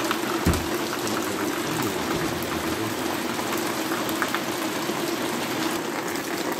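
Heavy rain pouring down steadily on roofs and a paved yard, heard as an even hiss, with a brief low thump about half a second in.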